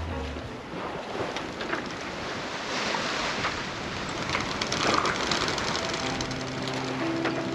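Sea water rushing and splashing along the hull of a sailboat under way, with wind on the microphone. Background music fades back in near the end.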